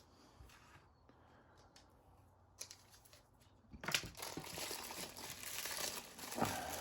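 Plastic packaging being handled and opened: a few faint clicks, then from about four seconds in a steady, busy crinkling and rustling of the wrapping.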